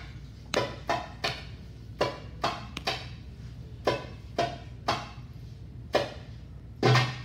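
Hand drum played sparsely with single sharp, ringing strokes, about a dozen in all at an uneven pace. A louder, deeper stroke comes near the end.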